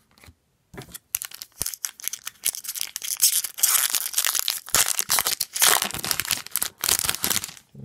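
Foil wrapper of an Upper Deck hockey card pack being torn open and crinkled by hand: dense crackling that starts about a second in and is loudest in the second half.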